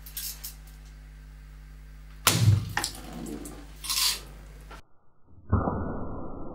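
A BB rifle shot a little over two seconds in, the steel BB striking a full two-litre plastic water bottle, followed by a shorter burst of noise about a second and a half later. After a brief dropout, a duller, muffled noise runs on near the end.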